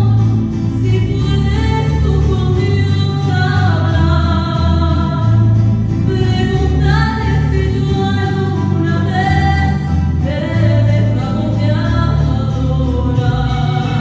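Live mariachi ensemble playing, with singing carried over violins, guitars and a guitarrón bass line.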